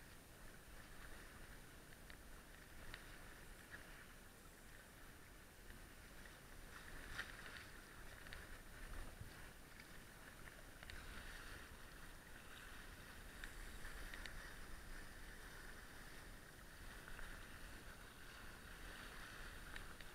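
Faint steady rush of water along the hulls of a small sailing catamaran under way, with a few light ticks.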